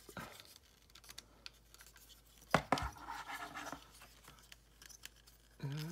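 Hard plastic parts of a transforming robot figure being handled: small clicks, taps and scrapes as panels and hinges are moved, with a sharper click about two and a half seconds in.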